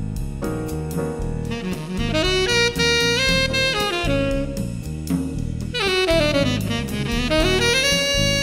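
Background music: a melodic lead instrument over a bass line and drums, with a quick run down and back up near the end.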